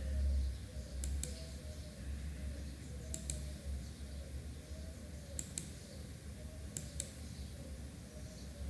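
Four pairs of sharp double clicks, spaced roughly two seconds apart, over a steady low hum.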